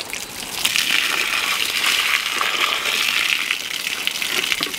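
Water gushing and splashing as it is emptied out of a plastic gallon jug that has been shot through, spilling onto a wet table and falling to the ground below.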